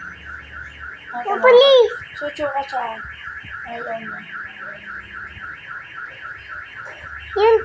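An alarm-like warble repeats several times a second throughout. A child's high, gliding voice squeals briefly about a second and a half in and again at the end.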